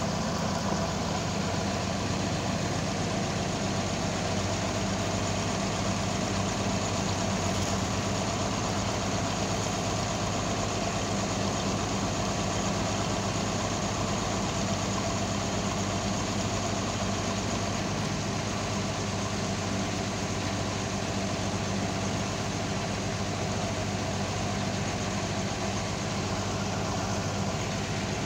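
Truck-mounted mobile crane's engine running at a steady speed, an even low hum that does not change.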